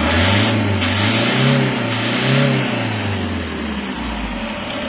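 Toyota HiAce 2KD four-cylinder turbodiesel engine revved twice in quick succession, then settling back to idle. The engine is freshly overhauled after a knock, and the mechanic says the knock is gone.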